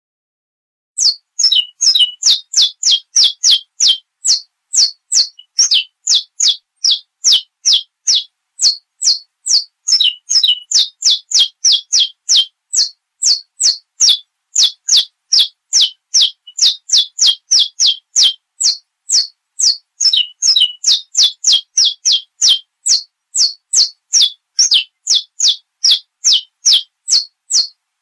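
Saffron finch (canário-da-terra) singing: a long run of short, high, whistled notes, each dropping in pitch, about two to three a second with a few brief pauses.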